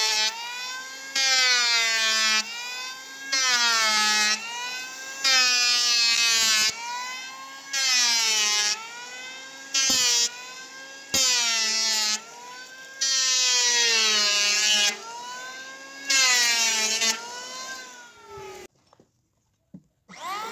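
Electric hand planer shaving a timber beam in repeated passes: its motor whine gets louder and dips in pitch as the blades bite, about every two seconds, and eases between passes. Near the end it cuts out, then spins up again with a rising whine.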